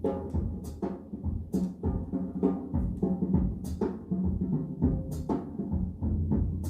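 Recorded music with drums played back over B&W 802D3 floor-standing loudspeakers: drum hits and cymbal crashes about once a second over a steady bass line.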